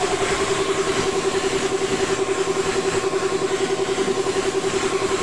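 Air compressor for spray painting running steadily: a constant motor hum over a hiss, pulsing evenly about six times a second.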